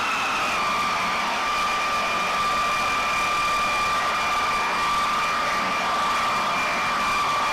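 Jet engine running: a steady high whine over a rushing roar, its pitch easing down slightly just after the start.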